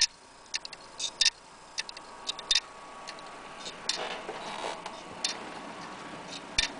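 Failing laptop hard drive clicking, the 'click of death', in uneven runs of sharp clicks. This is the sign of a dead drive that the computer will not read or detect. Some rustling comes in about four seconds in.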